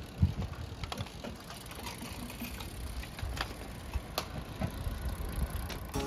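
Road bikes setting off, with scattered, irregular mechanical clicks from their drivetrains and cleats over a low steady rumble.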